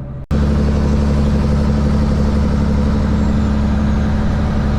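Semi truck driving under a heavy load: a steady low diesel engine drone mixed with road and tyre noise. It starts suddenly and cuts off abruptly.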